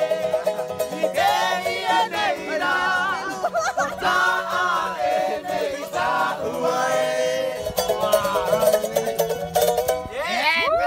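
Tahitian ukulele strummed in a quick, twangy rhythm, with men singing a Polynesian song along. Near the end the playing gives way to voices calling out.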